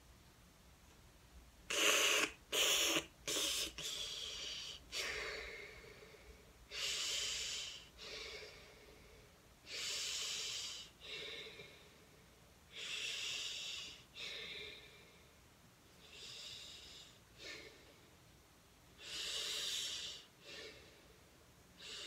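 A man breathing in and out through his mouth with his nose pinched shut and his tongue tip held up against the roof of the mouth, so the air hisses past both sides of the tongue, the airflow of an English L. First three quick sharp breaths, then slower, longer breaths every couple of seconds.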